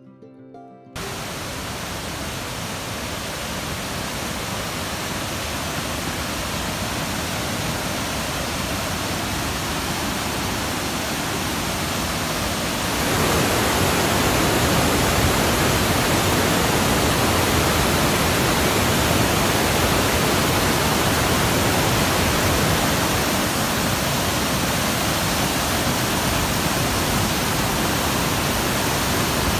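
Mountain river rushing over boulders, a steady noise of water that starts about a second in and grows louder a little before halfway, where a cascade tumbles close by.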